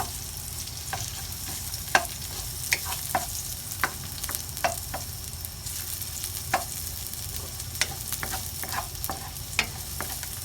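Ginger and garlic sizzling steadily in hot oil while they brown, with a cooking utensil knocking against the pan every second or so as they are stirred.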